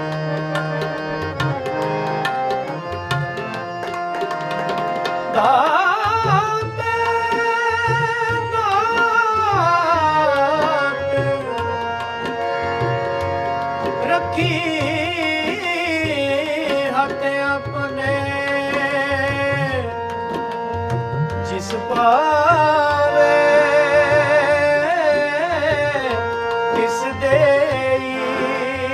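Sikh shabad kirtan: harmonium chords and tabla drumming, with a man's voice singing three long drawn-out phrases that waver and bend in pitch.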